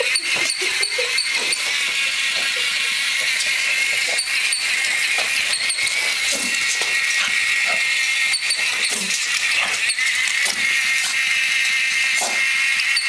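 Small electric motor of a battery-powered moving toy rat running with a steady high whir, with irregular clicks and rattles as it scoots over a tiled floor.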